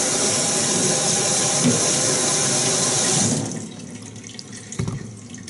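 Tap water running into a stainless steel sink, a steady rush that stops about three seconds in. A light knock follows near the end.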